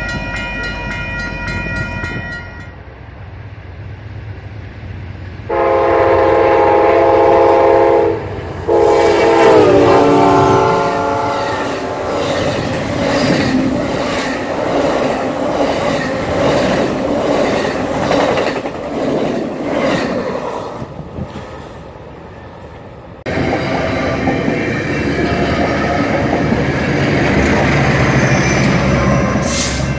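Amtrak Coast Starlight's horn sounding two long blasts, the second dropping in pitch as the train passes at speed, followed by the rush of its Superliner cars going by. It is bracketed by a steady tone as a Union Pacific intermodal approaches, and near the end by a Metrolink F125 locomotive passing with a low steady hum.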